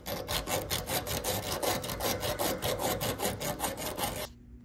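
Strip of abrasive sand cloth rubbed rapidly back and forth around small copper distributor tubes, a quick even scraping rhythm that stops abruptly shortly before the end. The copper is being cleaned to bare metal to prepare a refrigerant leak repair for brazing.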